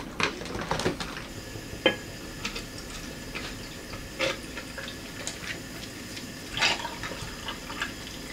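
Whisky and then a bottled mixer poured over ice into a glass to make a highball, with a few sharp clinks of ice and glass.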